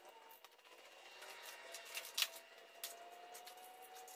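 Irregular light metal clicks and taps of bolts and hand tools against a steel engine-stand mounting plate as it is fastened to the back of the engine block, the sharpest about halfway through, over a faint thin steady tone.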